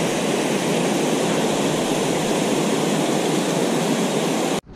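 Steady rushing of water pouring over a small waterfall, which cuts off abruptly just before the end.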